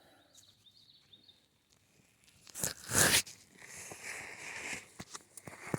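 Crunching and rustling of footsteps through dry leaf litter and brush. The loudest crunch comes about three seconds in, followed by quieter crackling and a few snaps.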